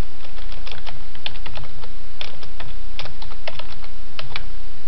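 Computer keyboard keys clicking in quick, irregular taps as text is typed, over a low steady hum.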